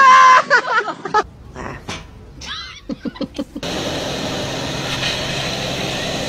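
A voice cries out briefly at the start. About three and a half seconds in the sound cuts to the steady, loud cabin noise of a small single-engine plane in flight: engine drone and wind rushing in at an open window.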